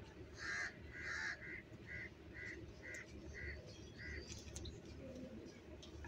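A house crow cawing: two loud caws, then a run of six shorter, softer caws about two a second.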